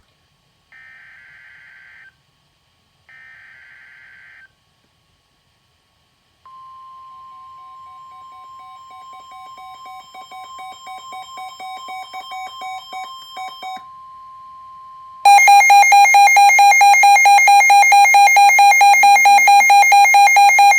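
NOAA Weather Radio alert sequence: raspy bursts of SAME digital header data, then the steady 1050 Hz warning alert tone. A weather radio's pulsing alert beep comes in over it and grows louder, and about fifteen seconds in a much louder, fast-pulsing weather radio alarm takes over, signalling a new warning.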